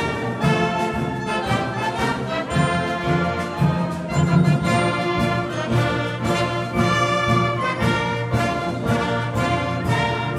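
Community concert band playing a march live, brass to the fore, with regular percussion strokes under the melody.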